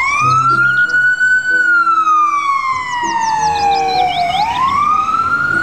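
Ambulance siren in a slow wail: it rises for about a second and a half, falls slowly for nearly three seconds, then starts rising again near the end.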